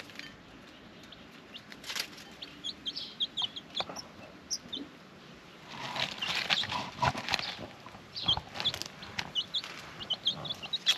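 Ten-day-old chicks peeping: many short, high, slightly falling cheeps, scattered and at times several a second. Mixed with them are scratchy rustles in dry leaves and pecks as the chicks forage, densest about six to seven seconds in.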